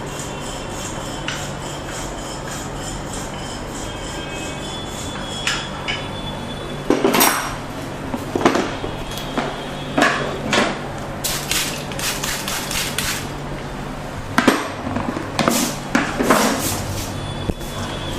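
Percussive massage tools tapping and striking: a few faint taps, then from about seven seconds in, a run of irregular sharp clacks and knocks, some in quick clusters, over a steady low hum.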